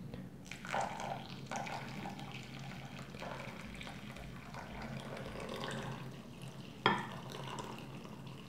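Near-boiling water poured from a stainless steel saucepan onto bulgur wheat in a glass bowl, a steady trickle, with one sharp clink about seven seconds in.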